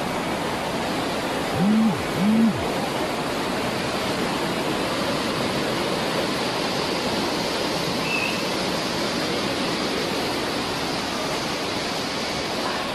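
Floodwater rushing in a steady, dense wash of noise. About two seconds in come two short low hoot-like sounds in quick succession.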